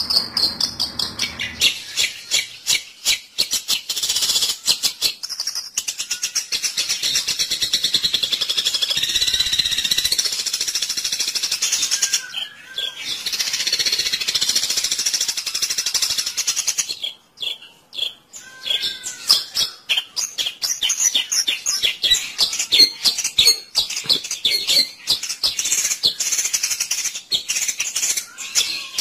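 Rapid, harsh bird chattering and trilling played as a lure call for long-tailed shrikes, continuous apart from a brief break just over halfway.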